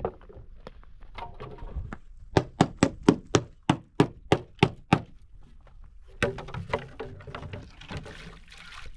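A quick run of about a dozen sharp knocks, roughly four a second, like something being struck repeatedly, then one more knock about a second later.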